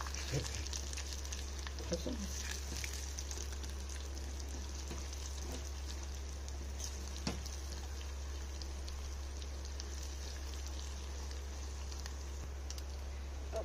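Slivered almonds and pistachios sizzling gently in ghee in a steel saucepan, roasting on a low flame while a silicone spatula stirs them, with a few light scrapes against the pan. A steady low hum runs underneath.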